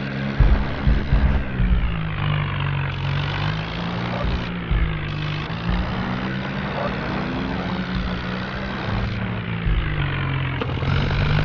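Vehicle engine running steadily, its pitch rising and falling as the throttle changes, with irregular low thumps, most of them in the first couple of seconds.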